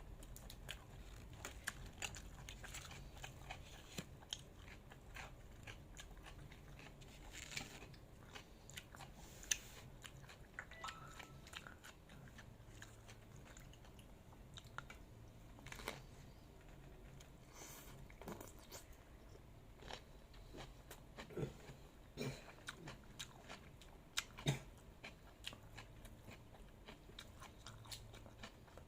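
A person chewing and biting food close to the microphone: a steady run of short, irregular crunches and mouth clicks, with a few louder crunches.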